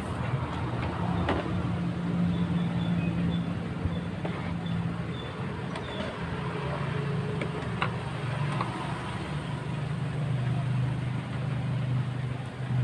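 Mitsubishi Mirage's three-cylinder engine idling with a steady low hum, with a few faint clicks from hands working at the wiring behind the dashboard.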